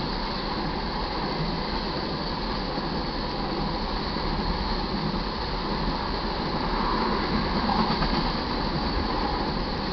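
Tank cars of a crude oil unit train rolling steadily past a grade crossing: a continuous rumble of steel wheels on rail, briefly louder about seven seconds in.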